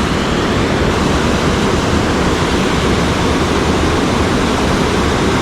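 Waterfall and rushing creek water, a steady, loud, even roar.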